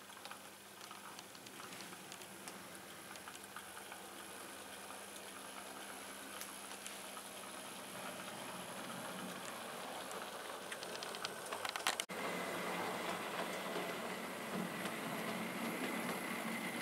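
OO gauge model train running over the layout's track: a steady rushing with scattered clicks from the wheels on the rails, growing gradually louder. About twelve seconds in it drops out for an instant and comes back louder, with a steady high whine.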